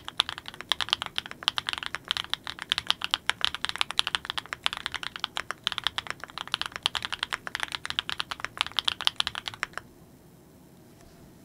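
Typing on a Klein Mont Cervin custom mechanical keyboard with Kinetic Labs Candy Vanilla switches: a fast, steady run of keystrokes that stops near the end.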